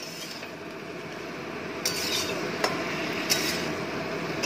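Metal spatula stirring and scraping vegetables and leafy greens around an aluminium wok, over a steady hiss of frying. Three sharper scrapes or knocks of the spatula on the pan come about two, two and a half and three and a quarter seconds in.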